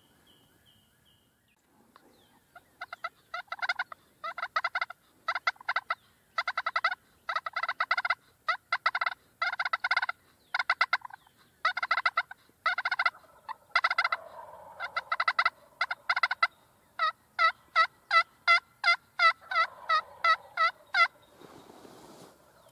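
Eastern wild turkey gobblers gobbling over and over in the dim light, with a quick run of loud rattling gobbles starting a couple of seconds in. Near the end comes a steady series of about a dozen evenly spaced calls, roughly three a second.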